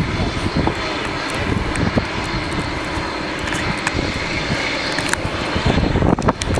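Jet airliner engines running with a steady, dense rush, while wind buffets the microphone with low gusts.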